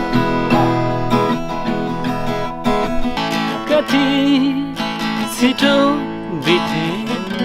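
Acoustic guitar being strummed, with a man's voice singing along from about three seconds in.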